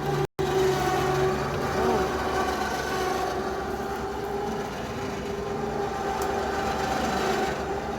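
An engine idling steadily at a constant speed, with an even low hum.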